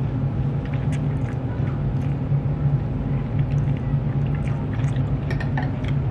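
Steady low mechanical hum with a constant pitch, with scattered faint clicks and taps over it.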